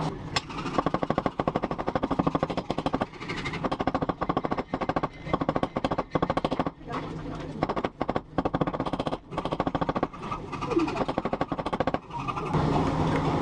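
Rapid mechanical rattling, a fast run of sharp strikes in bursts of a second or two with short pauses between, like a power tool working metal.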